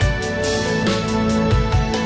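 Background music with a drum beat and sustained notes.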